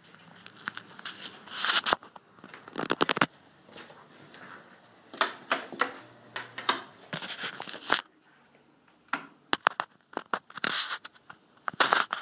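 Rustling and scraping on a handheld phone's microphone as it is carried and moved, in irregular bursts every second or two, with a few sharp clicks in the last few seconds.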